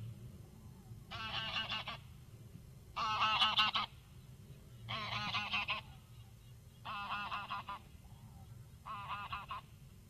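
A flock of geese calling as it flies over: bursts of rapid honking about every two seconds. The calls are loudest a few seconds in, then fade.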